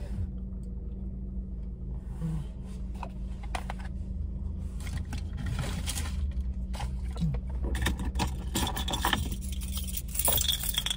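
Scattered rustles, small clicks and light rattling from things being handled inside a car's cabin, over a steady low hum.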